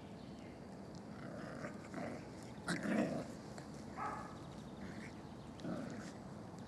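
Six-week-old puppies play-fighting, giving a few short growls and yips. The loudest comes about three seconds in.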